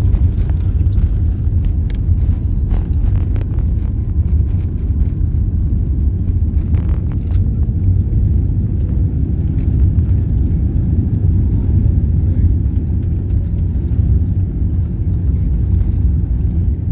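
Steady low rumble of an airliner cabin: engine and airframe noise heard from a passenger seat, with a few faint clicks or rattles.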